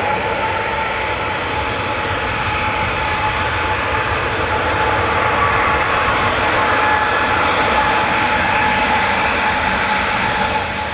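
Jet airliner's engines as it comes in to land, a loud, steady roar with a held whine, swelling slightly midway.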